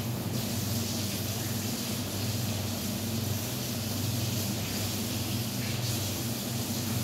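Minced chicken sizzling in a wok, a steady hiss, over a low steady hum.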